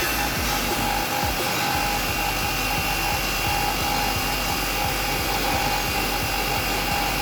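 Automatic double-end wood cutting, drilling and dowel-inserting machine running: a loud, steady whir of its motors with a constant tone.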